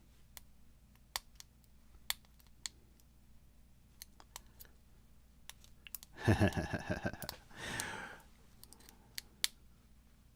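Lock picking in a Master Lock No. 5 pin-tumbler padlock: sparse light clicks of the pick and tension wrench against the pins and keyway, with a louder stretch of scraping and rattling about six to eight seconds in.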